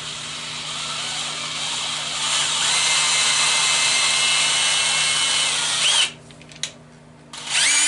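Cordless drill in slow speed turning a 6-32 tap into a small drilled hole in the metal lathe headstock, its motor whining steadily. It stops about six seconds in, gives one short blip, and starts again with a rising whine near the end.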